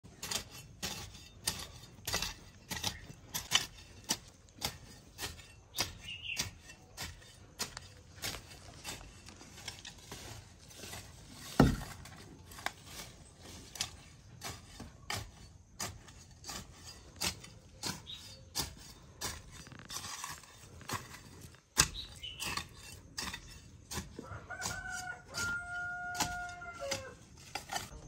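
A hoe blade chopping and scraping into garden soil, about two strikes a second, with one heavier thud about halfway through. Near the end a rooster crows.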